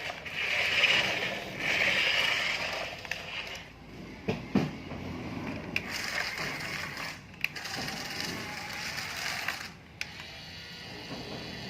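Small electric motors and plastic gears of radio-controlled toy construction vehicles whirring, with scraping and several sharp clicks.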